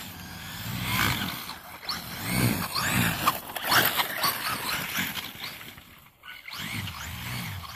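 Electric RC monster truck (a Traxxas Slash conversion) with a 2200kv brushless motor on a 4S battery, whining as it revs up and down in repeated bursts while its tyres churn through snow.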